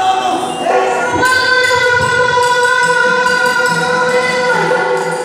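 Yakshagana background singer (bhagavata) holding one long sung note over the accompaniment, with light percussion strokes above it.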